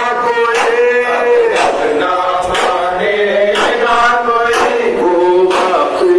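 Men chanting a noha, a Shia mourning elegy, through horn loudspeakers, with a sharp slap about once a second from mourners beating their chests in matam.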